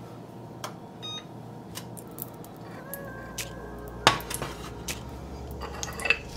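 Ghee melting in a stainless steel saucepan over medium-low heat, giving faint scattered crackles and pops, with one sharper click about four seconds in.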